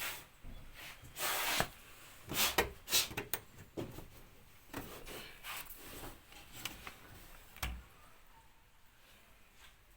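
Front-load clothes dryer making irregular scraping and rubbing noises, with scattered knocks and no steady rhythm: the noise of a machine whose maintenance has been skipped.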